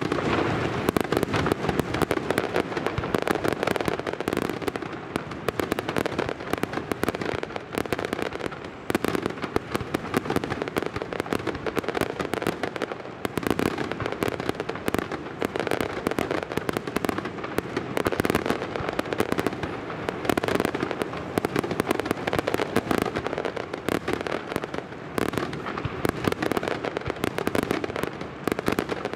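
Aerial fireworks display: a continuous, dense barrage of rapid bangs and crackling from shells bursting, with no pause.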